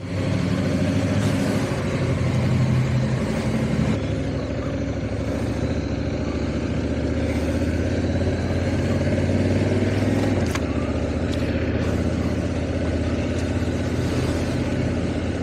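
Honda Africa Twin parallel-twin motorcycle engine running under way, with wind and road noise; the engine note changes about four seconds in and again near ten seconds, where there is also a short click.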